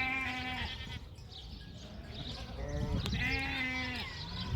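Sheep bleating: two long, quavering bleats, one at the start and one about three seconds in.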